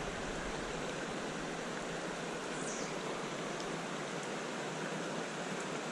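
Steady, even hiss of outdoor ambience with no distinct events.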